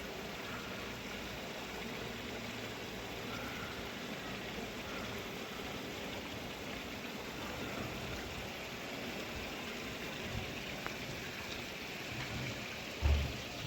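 Steady rush of flowing water from the thermal spring baths, with a brief low thump near the end.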